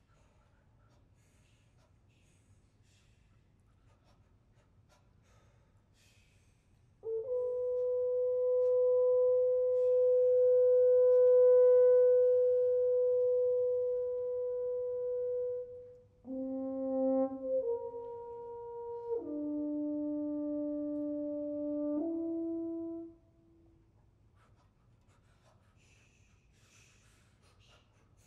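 French horns playing: after several seconds of quiet, one long held note that swells and then fades, followed by a short run of four held chords from the horns together, which stops about two-thirds of the way in.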